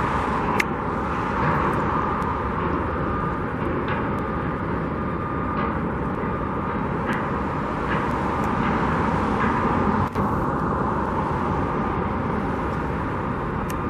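Steady outdoor din of road traffic and a busy construction site, with faint sharp knocks every second or two.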